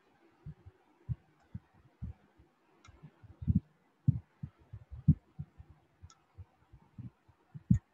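Irregular soft low thumps, one to three a second, with a few faint sharp clicks: a computer mouse being handled and clicked on a desk, picked up by the desk microphone.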